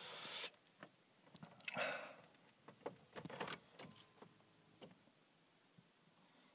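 Car keys jangling with a few faint clicks as the ignition key of a 2004 Volkswagen Jetta TDI is put in and turned to on, amid brief rustling; the engine is not yet running.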